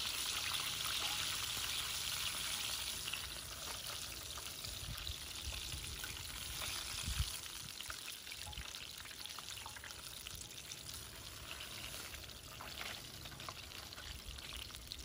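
Chicken legs deep-frying in hot oil in a cast iron skillet: a steady sizzle, loudest at first and easing off after about four seconds. A single thump about seven seconds in.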